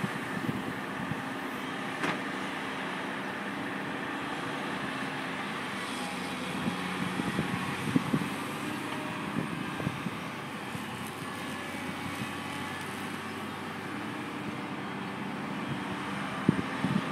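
Volvo EC290B long-reach excavator's diesel engine running steadily under hydraulic load as it swings and raises its boom; its pitch shifts slightly with the work. A few sharp knocks are heard, one about two seconds in and another about eight seconds in.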